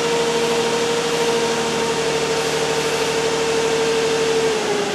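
2006 Nissan Quest's 3.5-litre V6 idling rough and misfiring on more than one cylinder, heard from inside the cabin with a steady hum over it. Near the end the engine note changes as cylinder two is cut out in a power balance test. The misfire comes from ignition coil connectors on cylinders one and three plugged in swapped.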